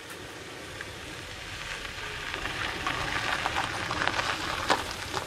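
A small car driving up a gravel road and pulling in, its tyres crunching over loose stones. The crunch grows louder as it comes close, with sharp stone crackles in the last couple of seconds.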